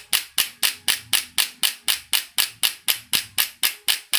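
Electric chiropractic adjusting gun (1200 N impulse type) firing its plunger in continuous repetition mode: a fast, even run of sharp clicks, about five or six a second.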